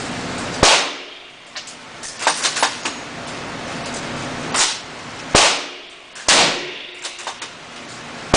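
Rifle gunshots: a loud shot about half a second in, then two more less than a second apart around five and six seconds in, each with a ringing tail, and another just at the end. Lighter clicks and knocks come between the shots.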